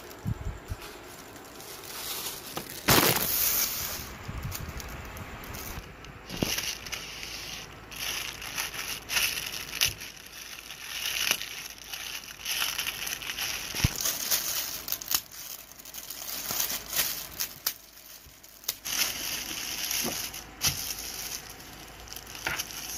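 Plastic poly mailer bags crinkling and rustling as they are handled and opened, in irregular crackles, with the loudest burst about three seconds in. Near the end a foam packing sheet rustles under the hands.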